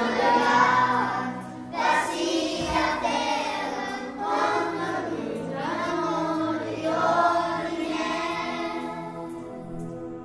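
A group of young children singing together as a choir, in phrases of about two to three seconds each.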